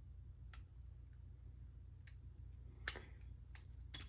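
Butterfly knife trainer being flipped and worked by hand: a few sharp, irregular metal clicks of the handles and latch, the loudest about three seconds in. The pivots are still stiff and need loosening up.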